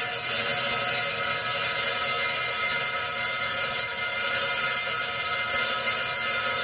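Covington lapidary slab saw's diamond blade cutting through a slab of labradorite: a steady, even grinding whine with a few held tones and a hiss over it.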